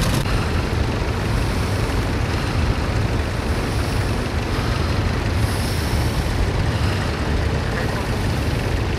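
Vintage tractor engine running steadily, heard as a constant low rumble.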